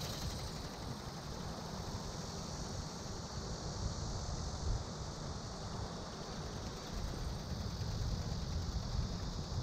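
Wind buffeting the microphone in an uneven low rumble, over a steady high hiss.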